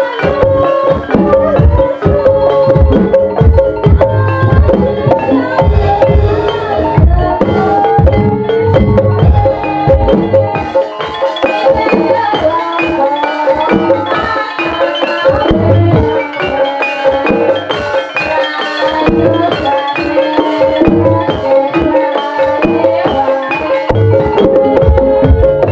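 Gamelan-style ensemble playing ebeg accompaniment: tuned mallet-struck instruments play interlocking melodic patterns over kendang hand-drum strokes, steady and loud throughout.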